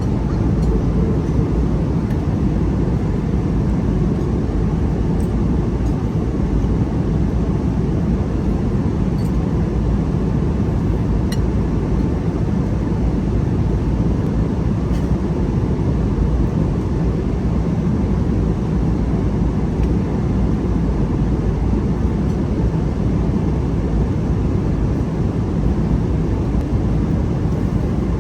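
Steady low rumble of an airliner cabin: engine and air-conditioning noise, with a few faint clicks.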